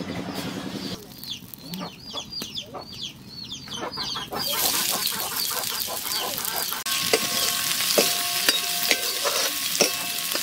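Sliced onions sizzling in hot oil in a steel wok; the sizzle starts suddenly a little under halfway through. From about two-thirds of the way in, a metal ladle stirs and scrapes the onions, knocking the wok several times so that it rings.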